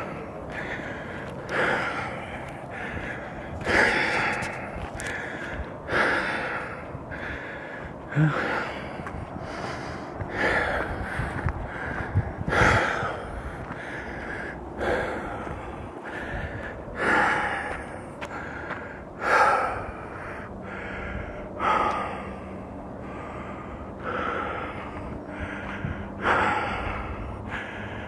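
A person breathing hard close to the microphone while walking, with a loud breath about every two seconds and a steady rhythm throughout.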